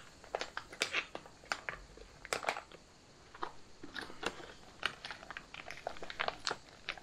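Crinkling and crackling of freeze-dried meal packaging: irregular sharp crackles as a small inner sachet of mashed potato is handled and pulled open at its top.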